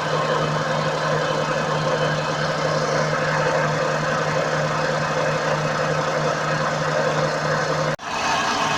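Opel Astra G's worn wheel hub bearing humming: a steady low drone over road and running noise. The sound cuts off abruptly about eight seconds in and comes back without the drone.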